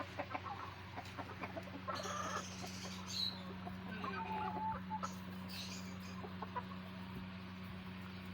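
Chickens clucking with short scattered calls, some higher chirps among them, over a steady low hum.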